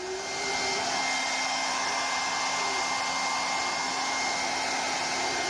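Handheld hairdryer blowing hot air, coming up to full speed in the first half second and then running steadily with a faint high whine. It is heating the thick vinyl of a statue's tail joint to soften it.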